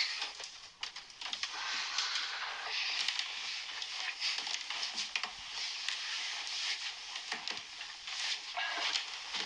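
Duvet and bed linen rustling and crumpling as the bedding is moved about, with many small crackles.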